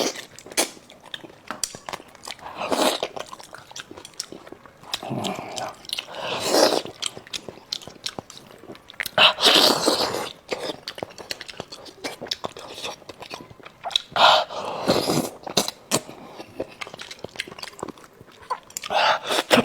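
Close-up eating sounds: a person biting and chewing pieces of sauce-braised monkfish, with many small mouth clicks and several louder stretches every few seconds.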